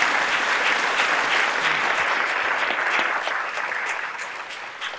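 Audience applauding, full at first and tapering off over the last couple of seconds into a few scattered claps.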